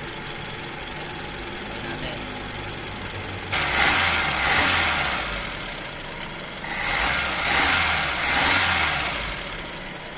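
Car engine idling, then revved twice: a sudden rise about a third of the way in that falls away, and a second, longer rev that dies back to idle near the end. The revs test the response after the ignition timing has been set advanced.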